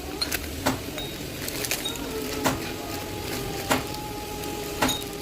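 A machine running with a steady hum, and a sharp knock about every second or so, with lighter clicks between.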